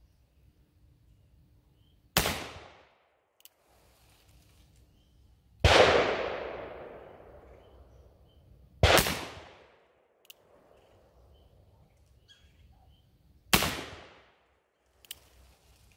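Pietta 1862 Dance replica .44 black-powder cap-and-ball revolver fired four times, a few seconds apart: each shot is a sharp crack with a trailing echo. Fainter clicks come between some shots.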